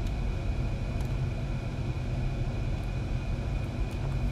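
Steady low background rumble with a faint high whine, the room's noise floor, and a few faint mouse clicks.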